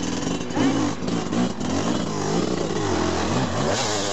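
Christini AWD 300's two-stroke GasGas 300 engine revving hard under load as the dirt bike claws up rocks, its pitch rising and falling several times.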